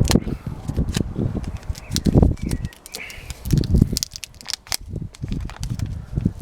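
Crackling and rustling from a sticky tyre-repair plug string being pulled and worked between the fingers, with scattered clicks and irregular low thumps.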